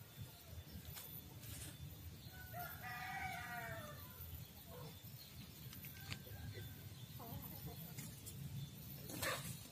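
A rooster crowing once, about two and a half seconds in, in a crow lasting about a second and a half. Around it are short rustles and scrapes of hands working in soil and dry leaves, the loudest near the end.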